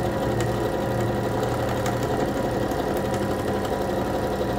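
Electric sewing machine running steadily at speed while stitching a seam, then stopping abruptly near the end.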